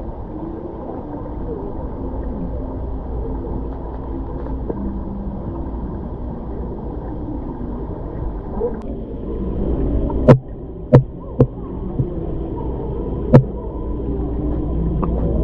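Steady low hum and rumble of indoor ambience with faint, indistinct background voices, broken by a few sharp knocks, five of them, past the middle.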